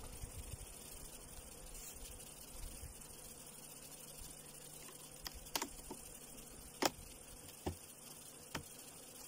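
Honeybees buzzing around an open hive, a steady hum that fades after the first few seconds, then about five sharp clicks in the second half as the wooden hive frames are handled.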